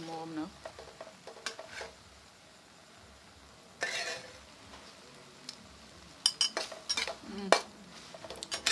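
Metal spatula scraping and clanking against a steel wok while stir-frying sliced onions and egg, with a light sizzle underneath. The strokes come in irregular bunches, with a quick run of clanks late on.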